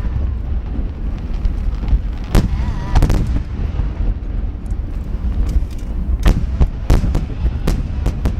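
Large 30 cm shakudama firework shells bursting in a rapid barrage: a run of sharp bangs at uneven intervals over a continuous deep rumble of overlapping booms and echoes.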